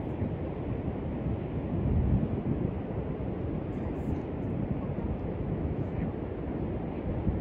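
Wind buffeting the microphone, a steady low rumble that swells about two seconds in.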